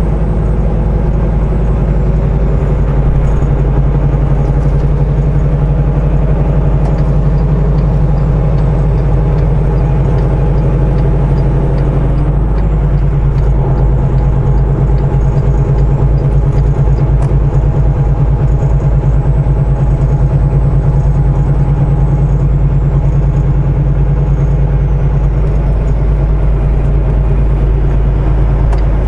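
Semi truck's diesel engine running as it drives, heard inside the cab: a steady low drone with a short change in note about twelve seconds in.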